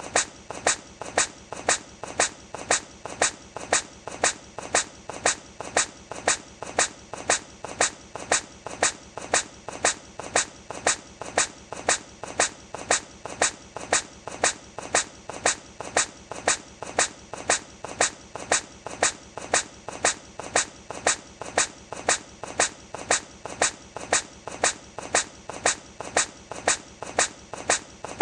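Hedgehog sneezing over and over, one short sharp sneeze with softer little sounds after it, repeating evenly about three times every two seconds as a short clip loops.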